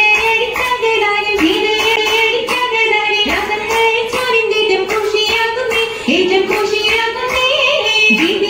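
Girls' voices singing an Oppana song, a Mappila wedding song, in a steady melodic line. Regular rhythmic hand claps from the seated dancers run under it.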